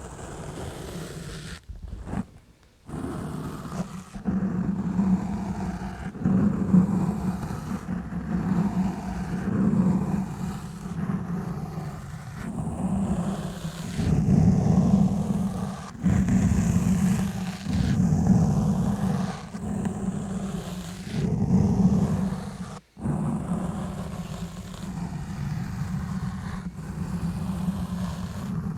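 Exfoliation gloves rubbing and scrubbing on a foam-covered microphone: a low, rumbling scrape that swells and fades in strokes about every two seconds, with a brief break near the end.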